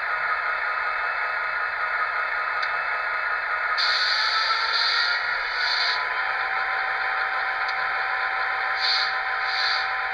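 Sound decoder in an HO scale EMD F40PH model playing the locomotive's diesel idle through a small 28mm speaker, a steady tinny rumble. Short hissing bursts come in about four seconds in and again near the end.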